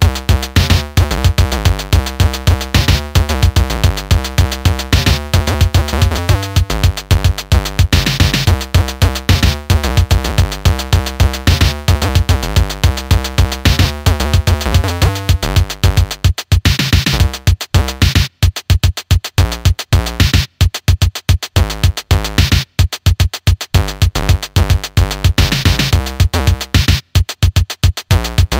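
Electronic background music with a steady beat; the deep bass drops away about halfway through.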